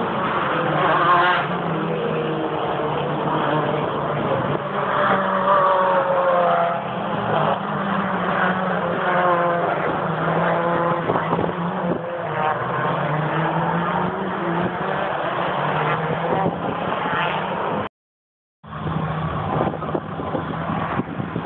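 British Touring Car Championship race cars passing at speed, several engines overlapping, their notes rising and falling in pitch. The sound cuts out completely for under a second about 18 seconds in, then the engines carry on.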